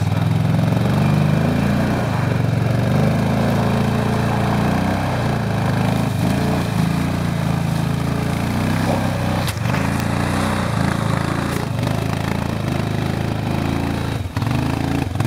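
ATV engine running under load as the quad drags a bull moose carcass through marsh and brush, its pitch rising and falling with the throttle. There are a couple of brief knocks or scrapes along the way.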